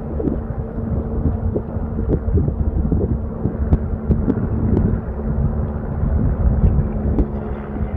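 Volcanic lava fountain jetting from the crater: a loud, steady low rumble with a deep hum, like a plane taking off, and a few faint ticks.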